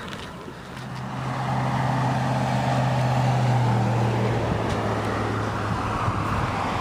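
A road vehicle driving past, its low engine hum and tyre noise growing louder over the first three seconds or so and then easing off slightly.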